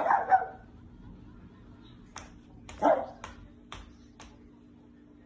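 Small dog barking twice, a short bark at the start and another about three seconds in, with a few sharp clicks in between.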